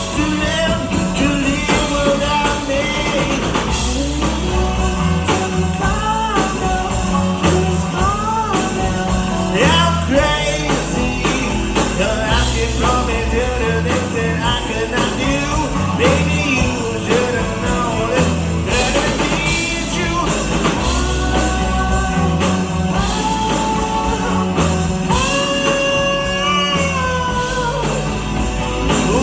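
Live rock band music: a melodic lead line that slides and bends in pitch over a moving bass line, with no clear sung lyrics.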